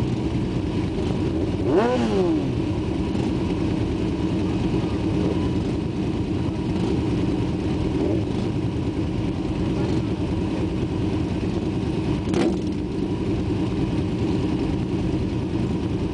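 Several motorcycle engines idling together while stopped in a line, with one rider blipping the throttle about two seconds in, the pitch rising and then falling back. A brief sharp sound cuts through later on.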